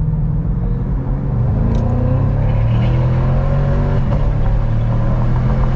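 Chevrolet Camaro accelerating hard under a full-throttle pull, heard from inside the cabin: the engine note climbs, then falls back about four seconds in and carries on.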